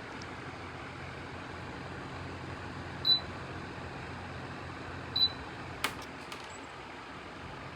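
Electric fan running with a steady whir and faint low hum, its control panel beeping twice with short high beeps, the sign of its buttons being pressed. A sharp click follows the second beep.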